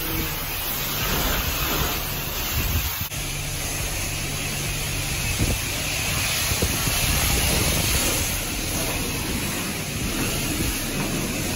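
Self-serve car wash pressure wand spraying water onto a pickup truck's body: a steady hiss of spray, with a low hum underneath.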